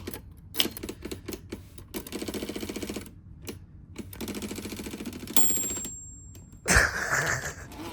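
Typewriter being tried out: scattered key strikes, then two runs of fast, even clicking, then the margin bell dings about five seconds in and rings for about a second, followed by a loud clatter.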